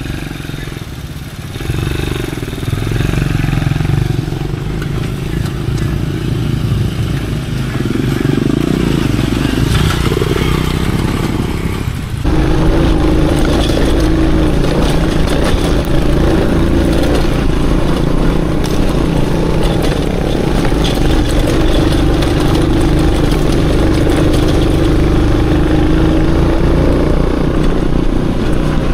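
Aveta Ranger Max motorcycle engine running as it is ridden, its note rising and falling with the throttle for about the first twelve seconds, then, after an abrupt change, holding a steady note.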